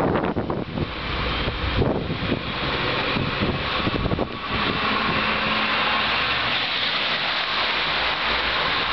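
Strong blizzard wind gusting and buffeting the microphone with heavy, uneven rumbles. About halfway in it settles into a steadier rushing hiss.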